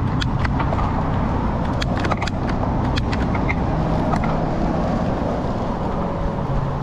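Bicycle being ridden: a steady rumble with scattered sharp clicks and rattles throughout.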